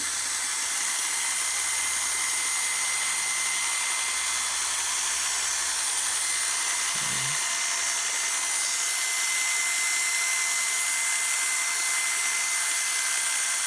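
Electric pet grooming clippers running steadily as they are pushed through a miniature schnauzer's coat.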